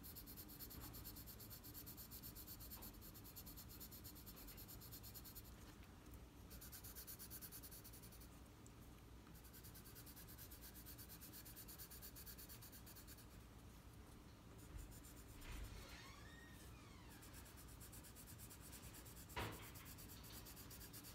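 Faint, steady scratching of a colored pencil shading on paper.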